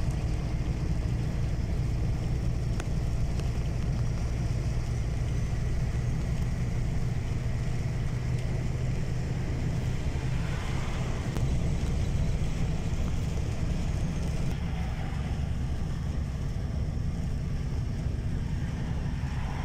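Steady low rumble of a car driving on a wet highway, heard from inside the cabin: engine and tyre noise with no sudden events.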